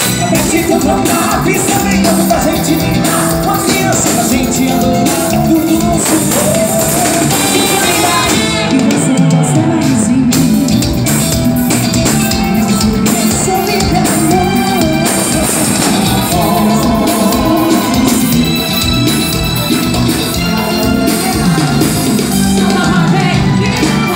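Live forró band playing loud amplified music: singing over electric guitar, keyboards and drums with a steady beat.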